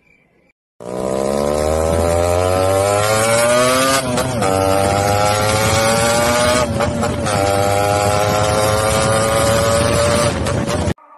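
Motorcycle engine revving up, starting about a second in. Its pitch climbs, dips briefly twice and climbs again, then holds steady before cutting off near the end.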